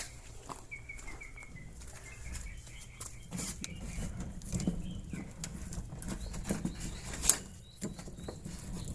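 Electrical cable being pushed through a wall: irregular rustling and scraping with scattered clicks, and a sharp click about seven seconds in. Faint bird chirps about a second in.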